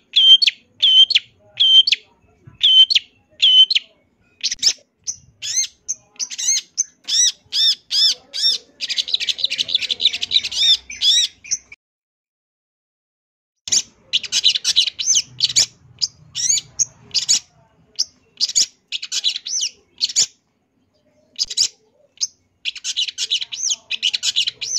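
Long-tailed shrike (cendet) singing a varied song full of mimicked phrases. It opens with sharp repeated notes about one a second, quickens into a fast, dense chatter, breaks off for about two seconds halfway through, then goes on in rapid bursts.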